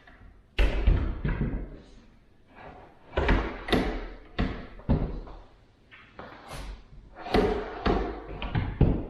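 Irregular knocks and thumps, about seven in nine seconds, as wooden kitchen cabinet parts are handled and set in place during assembly.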